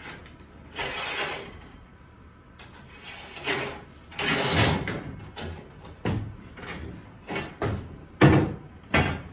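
Steel parts scraping and clanking as a broken garage-door torsion spring is worked off its shaft. Several long scrapes in the first half are followed by a run of sharp metallic knocks.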